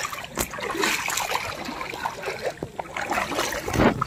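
People wading on foot through shallow floodwater, their steps making irregular splashes, with a louder splash near the end.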